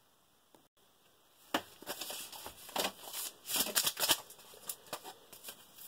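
Crinkling and rustling of a ration's plastic packets being handled, starting about a second and a half in as a run of irregular crisp crackles.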